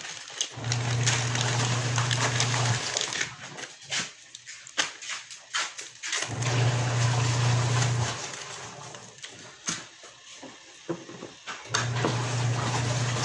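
An electric motor running in three short bursts of about two seconds each: a steady low hum with a hiss, switching on and off sharply.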